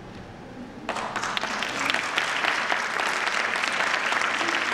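Audience applauding, starting about a second in: many hands clapping together, building quickly and then holding steady.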